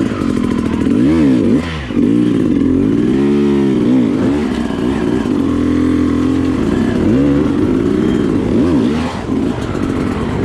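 Enduro dirt bike engine revving up and down over and over as the throttle is worked on the trail, holding steadier for a couple of seconds in the middle.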